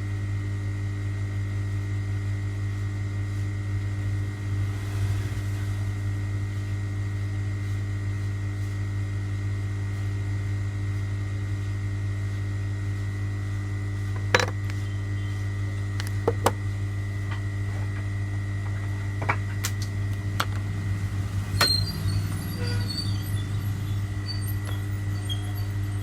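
Steady electrical hum with a faint high whine from bench equipment, and a few sharp clicks and taps from about halfway through.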